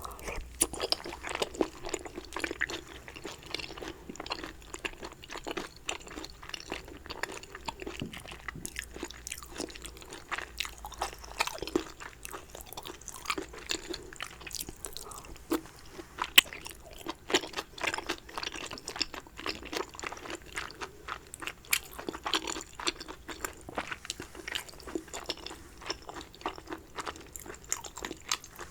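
Close-miked eating sounds: a person chewing and biting food, with many small wet mouth clicks and smacks at an even pace.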